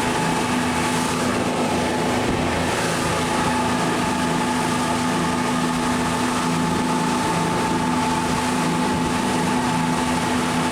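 Boat motor running at a steady speed: an even, constant-pitched drone that does not rise or fall.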